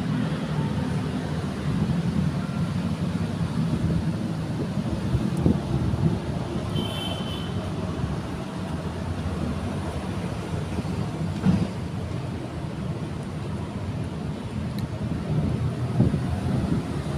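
Steady low rumble of road traffic, with a few short clicks and a brief high chirp about seven seconds in.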